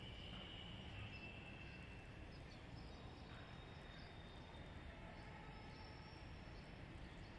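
Near silence: faint, steady outdoor background noise with no distinct event.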